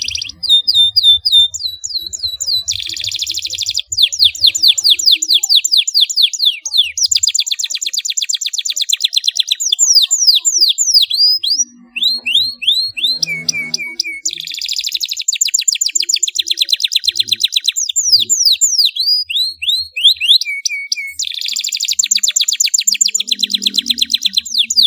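Domestic canary singing a long, loud rolling song of rapid high-pitched trills and runs of fast down-sweeping notes, broken by short pauses about four and twelve seconds in.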